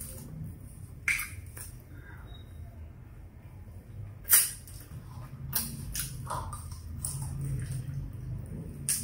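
Close-up eating sounds of a person eating fried chicken by hand: short, sharp mouth smacks and chewing, the loudest smack a little after four seconds in, over a low steady hum.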